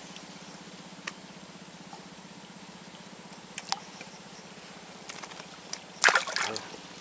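A steady low hum under the outdoor background, with a few faint single clicks, then a short louder burst of noise about six seconds in.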